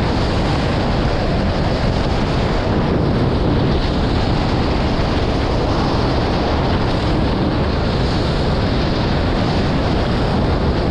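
Steady, loud wind blasting the microphone over water rushing and spray hissing off the hulls of a Nacra 20 beach catamaran sailing fast in strong wind.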